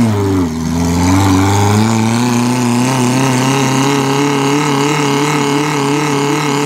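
Stock Suzuki Jimny engine labouring through deep mud: it drops from a rev over the first half second, then holds a steady, even note under load.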